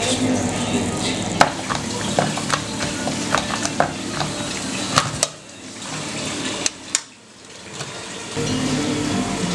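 Food-preparation clatter: a run of sharp clicks and scrapes of a metal utensil against dishes, then cheese being grated by hand on a metal grater. The middle goes quieter, with two sharp clicks.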